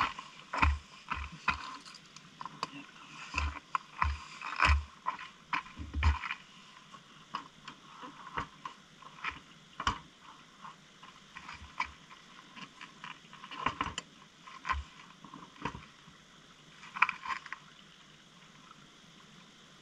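Irregular clicks and knocks, with dull thumps among them over the first six seconds or so, then sparser clicks.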